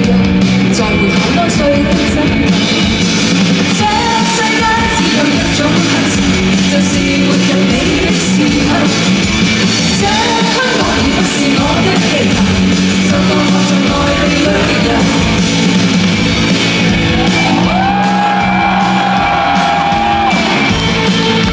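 Live band playing amplified music with singing, echoing in a large hall; a long sung note is held near the end.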